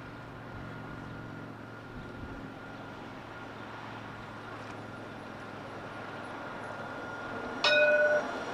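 Alstom Citadis tram approaching, its running noise and a thin steady whine slowly growing louder. Near the end it sounds one short, loud warning horn blast of about half a second, cut off sharply.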